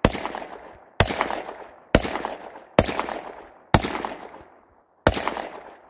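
Panzer EG200 12-gauge semi-automatic shotgun firing Remington 1 1/4 oz game loads in quick succession: six shots about a second apart, each followed by an echo that dies away.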